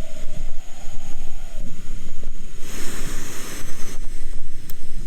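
Wind buffeting the microphone: a loud, uneven rumble that rises and falls in gusts, with a hiss of wind above it.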